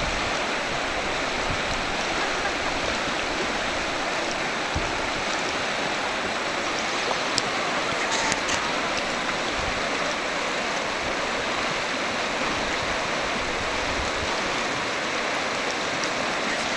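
River rapids: whitewater churning over rocks with a steady rushing noise that does not let up.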